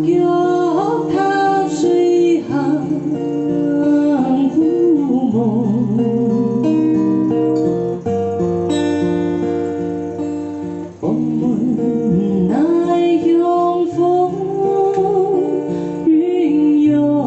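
A woman sings to her own acoustic guitar accompaniment: strummed and picked chords under a sung melody with vibrato. The vocal lines come in phrases, with guitar-only stretches between them.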